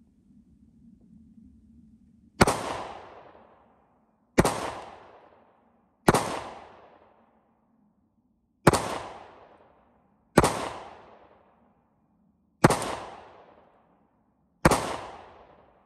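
Seven shots from a Springfield Hellcat 9mm pistol, fired at a steady pace about two seconds apart. Each is a sharp crack with about a second of echo trailing away after it.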